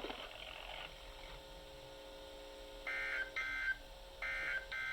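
Two pairs of short electronic beeps, each beep several tones sounding together like telephone touch-tones, starting about three seconds in over a faint steady hum on the weather radio audio.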